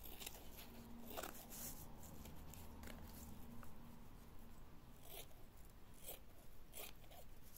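Scissors snipping through tulle netting, a handful of faint, short cuts at irregular intervals.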